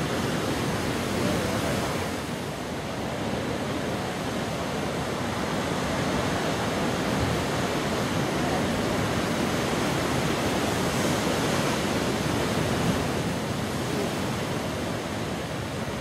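Large ocean waves breaking: a steady rushing noise of heavy surf and wind.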